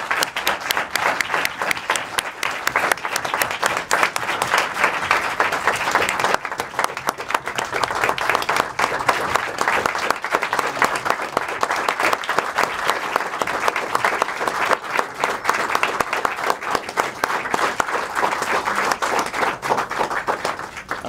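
Audience applauding: dense, steady clapping from many people in a cinema auditorium.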